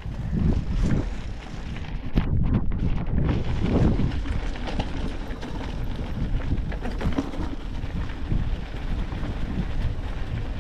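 Wind buffeting the action-camera microphone over the rumble and clatter of a Trek Rail 5 electric mountain bike rolling over rough mountain ground.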